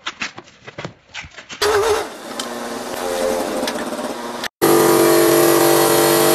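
Clips of stone-factory machinery cut together. First there are irregular knocks. From about a second and a half in, a forklift engine runs. About four and a half seconds in, a stone-cutting saw starts a loud, steady whine.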